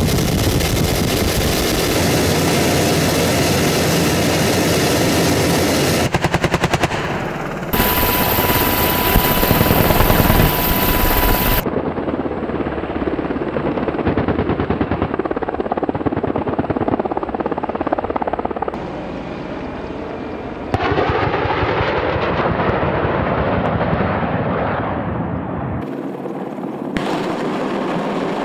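AH-64 Apache attack helicopters: rotor and engine noise with rapid bursts of 30 mm cannon fire, one clear burst about six seconds in. A steady tone sounds for a few seconds after it, and the sound changes at each cut between clips.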